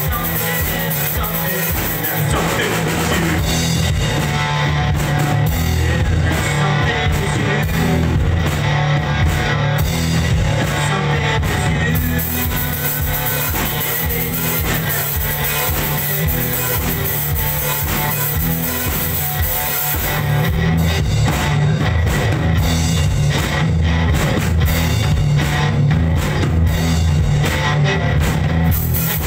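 A guitar-and-drums rock duo playing a song live: guitar with a drum kit keeping the beat.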